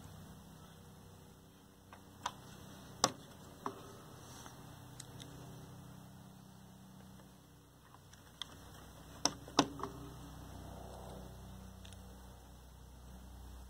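Hard plastic control knobs being pushed onto a TV's control shafts: a few scattered sharp clicks, a cluster of them about nine seconds in, over a faint low hum.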